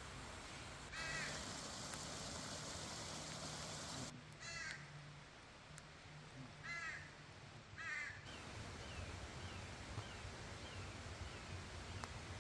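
A bird calling in four short bouts of quickly repeated cawing notes, with a run of short, falling chirps in the second half.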